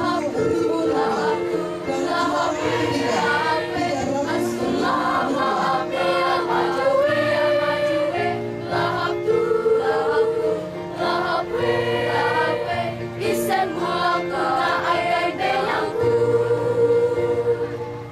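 Junior high school choir of girls singing a song in chorus into a microphone, with long held notes.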